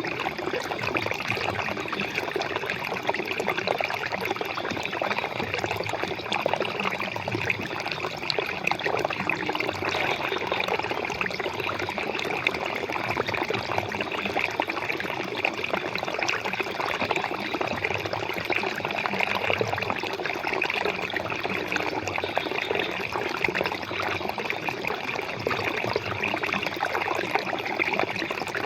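Flowing water running steadily.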